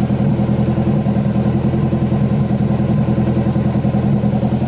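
Turbocharged Honda S2000's four-cylinder engine idling steadily. It sounds healthy, with no valve chatter after fresh fuel injector seals, and is likened to a little sewing machine.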